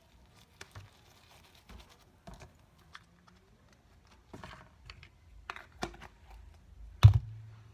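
Crunchy foam slime mixed with straw pieces being squeezed and poked by hand, giving scattered small clicks and crackles. A single loud thump comes about seven seconds in.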